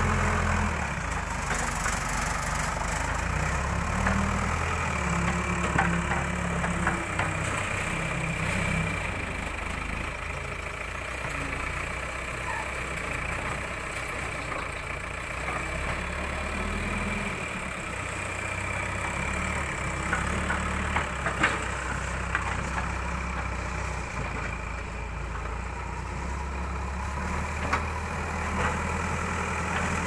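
Diesel engine of a Tata Hitachi TH76 backhoe loader running steadily, its speed stepping up and down as the loader lifts, tips and backs away with a bucket of sand. A few short sharp clanks come about two-thirds of the way through.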